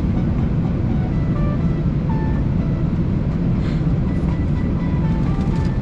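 Steady low rumble of cabin noise inside a parked Airbus A320, with the aircraft's air and systems running while it stands still.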